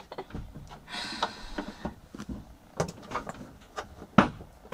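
Overhead cabin hatch being pulled shut and latched: a run of small clicks and knocks from the latch handles, a brief scraping rustle about a second in, and a sharp click near the end.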